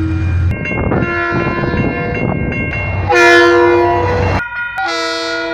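KiwiRail diesel locomotive horns sounding in a string of short, separately cut blasts, each several notes at once, with an engine rumble under the first ones.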